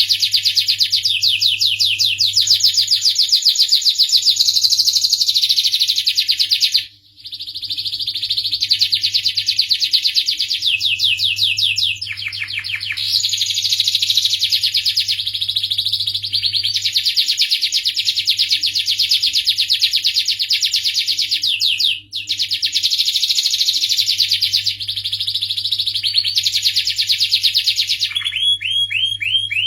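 Domestic canary singing a long song of rapid trills, breaking off briefly about seven and twenty-two seconds in, over a faint steady low hum.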